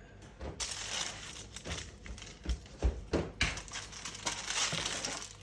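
Rustling with a few light knocks from food being handled at a kitchen worktop.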